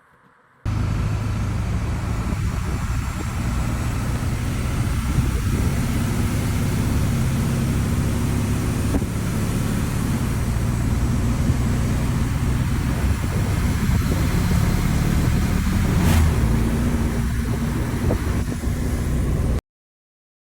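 LBZ Duramax 6.6-litre V8 turbodiesel running steadily, with a brief click about sixteen seconds in. The sound cuts in and out abruptly.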